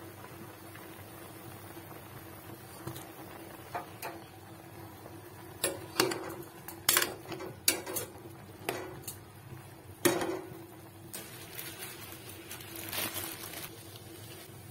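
A metal ladle clinking against a metal cooking pot of boiling chicken broth, about ten sharp clinks in the middle of the stretch with the loudest near the end of them. A steady low hum runs underneath.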